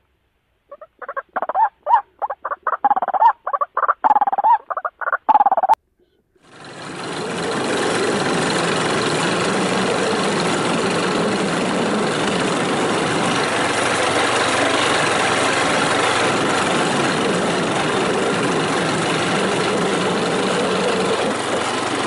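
A fast string of short, repeated white-breasted waterhen calls, ending with a sharp click about six seconds in. Then a motorcycle riding along a gravel road, its engine running steadily under loud wind and road noise.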